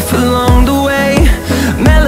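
Background pop music with a steady beat and deep bass-drum hits.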